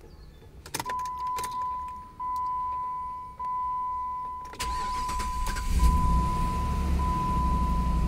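Jeep Grand Cherokee's ignition switched on with a few clicks, then its dashboard warning chime beeping in a steady repeating tone. About four and a half seconds in the starter cranks the engine, which catches a little over a second later and settles into an even idle under the chimes. This is a normal start after the no-crank, no-start fault was repaired.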